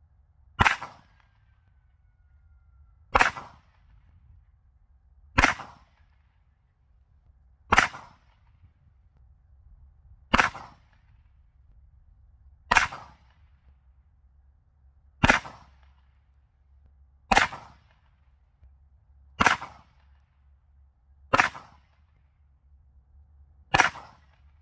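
Eleven single gunshots fired one at a time at a slow, steady pace, about one every two seconds. Each is a sharp crack that dies away quickly.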